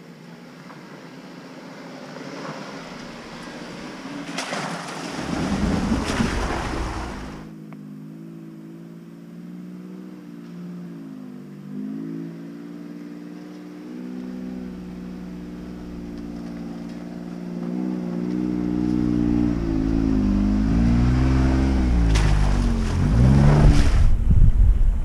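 An off-road 4x4's engine labours up a dirt trail, its pitch rising and falling with the throttle and growing louder as it comes closer. Wind buffets the microphone about five seconds in and again near the end.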